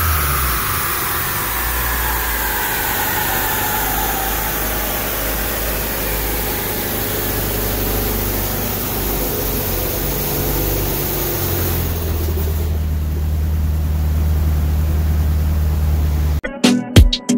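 Turbocharged B-series Honda Civic engine settling to a steady idle on the dyno rollers after a pull, with a whine falling in pitch over the first few seconds as things spin down. Music cuts in near the end.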